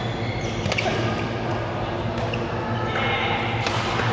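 Badminton rackets smacking a shuttlecock, two sharp hits about a second in and again near the end, ringing in a large echoing hall over a steady low hum.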